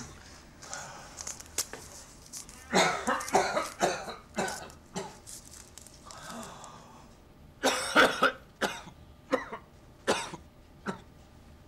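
A sick man coughing in fits: a run of harsh coughs about three seconds in, another about eight seconds in, then a few single coughs.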